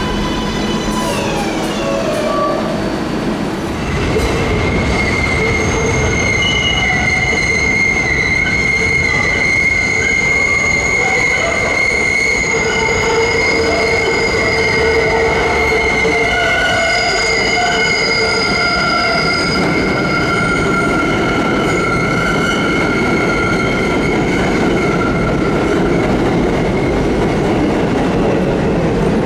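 New York City Subway 7 train passing with loud rumble, its wheels squealing in several steady high tones. The train grows louder about four seconds in, and the squeal holds for most of the passage.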